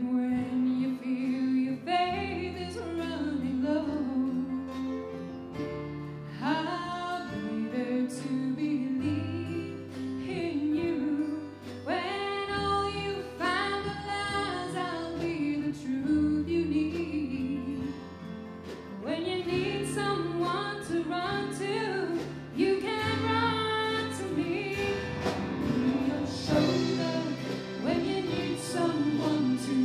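A woman singing lead with a live band: acoustic guitars, electric keyboard and drums.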